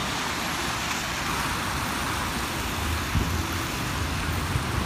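Traffic on a rain-soaked street: a steady hiss of tyres on wet pavement, with a deeper vehicle rumble coming up about three seconds in.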